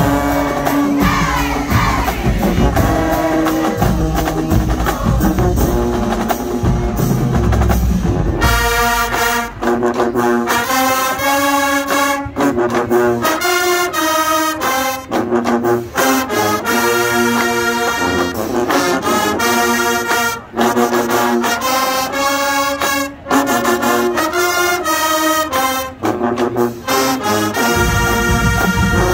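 High school marching band in the stands, brass playing loud, with crowd noise and heavy bass over the first several seconds. From about eight seconds in, the horns play short punchy chords in a steady rhythm with the deep bass dropped away, and the bass comes back in near the end.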